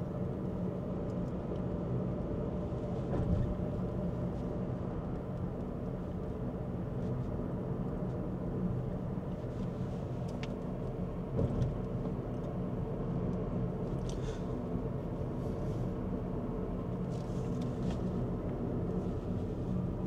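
Car interior driving noise: steady engine hum and tyre road noise heard inside the cabin, with two brief thumps about three seconds and eleven seconds in.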